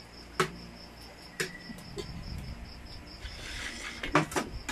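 A few sharp clinks of spoons and forks against plates as people eat, over a steady high-pitched chirping pulse about five times a second.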